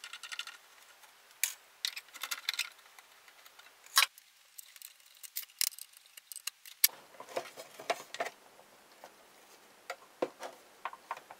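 Scattered small clicks and light knocks as the plastic control knobs are pulled off an old valve wire recorder's front panel and its sheet-metal front speaker plate is taken off.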